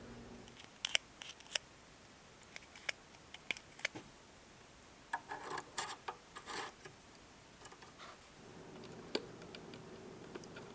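Scattered light clicks and taps from plastic bird-feeder parts being handled, with a short run of rustling and scraping about halfway through.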